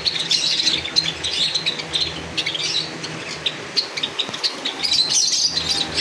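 Many small aviary birds chirping at once in a constant high chatter of quick, overlapping chirps. The chatter is busiest at the start and again about five seconds in.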